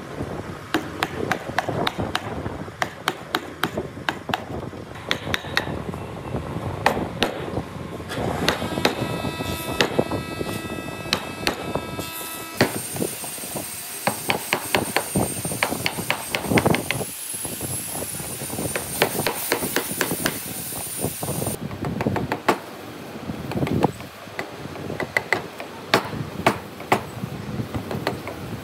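A wood chisel being struck again and again, chopping waste out of a notch in a timber beam, the blows coming in quick runs of sharp knocks.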